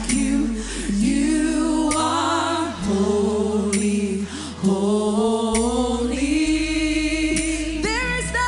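Live worship music: a singer holds long wordless notes with vibrato, rising and falling slowly, over sustained low bass chords that change every couple of seconds.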